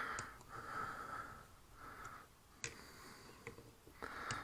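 Faint breathing through the nose close to a head-mounted microphone, about four breaths, with a few light clicks of a screwdriver working the screws on an outboard motor's carburetor.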